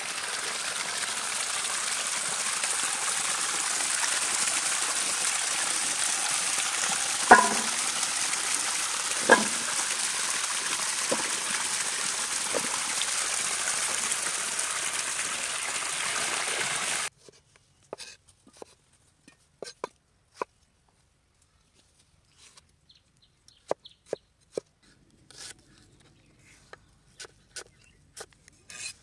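Water gushing hard from an open PVC pipe outlet into a steel bowl, with two sharp clanks about seven and nine seconds in. After about seventeen seconds it cuts off suddenly, and a knife slicing onions on a wooden board gives irregular short taps.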